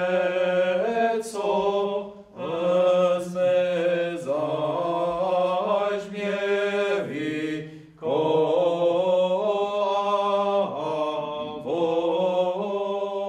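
Religious chant: a melodic voice sings in phrases over a steady held low drone, with short pauses between phrases, and fades out at the very end.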